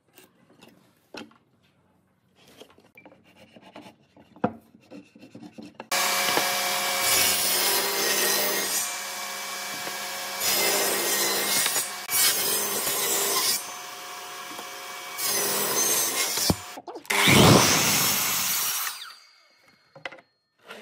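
Faint handling taps at first, then about six seconds in a benchtop table saw running with a steady motor tone, cutting into a wooden block in several passes so the loudness rises and falls. A last loud cut comes near the end, and the saw stops a couple of seconds later.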